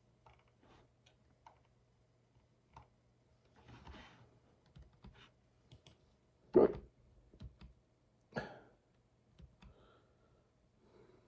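Person hiccuping: one sharp hiccup about two-thirds of the way in and a weaker one under two seconds later, amid faint scattered clicks.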